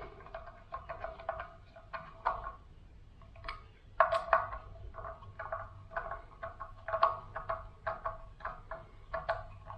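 Small hand tool working the bolts of a bicycle brake disc rotor: a run of irregular metallic clicks and taps, many with a short ring.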